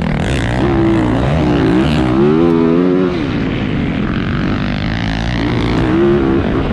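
Motocross dirt bike engine revving hard, its pitch climbing and dropping several times as the throttle opens and closes and the gears change.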